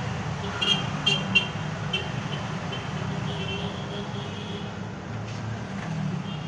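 Steady low background rumble with short, high-pitched beeps repeating through the first half, one longer beep a little after the middle, and a few sharp clicks about a second in.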